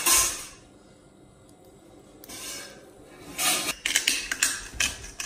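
Mayonnaise squeezed from a soft plastic pouch, a short sputtering squirt at the start. Later come a run of short rubbing and knocking handling noises.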